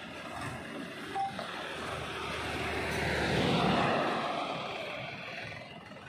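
A road vehicle passing by, its engine and tyre noise swelling to a peak about three and a half seconds in and then fading away.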